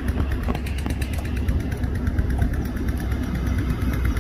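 Engine of a tracked rice combine harvester running steadily as the machine moves along.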